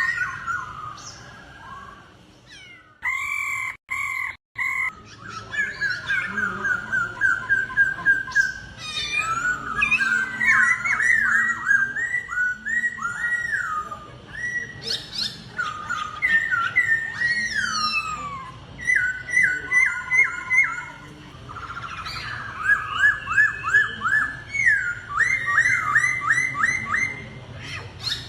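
Laughingthrushes (khướu) singing against each other in a song duel: loud, whistled phrases made of rapid series of slurred, falling notes, with a brief break about four seconds in.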